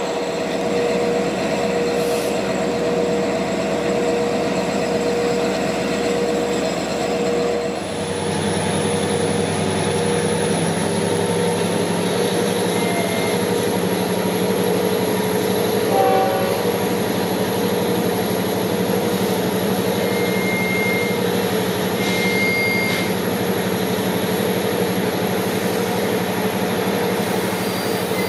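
Long Island Rail Road equipment train of bilevel coaches after an emergency brake application, with a steady ringing tone throughout. About eight seconds in, a low hum comes in and a faint high whine slowly rises.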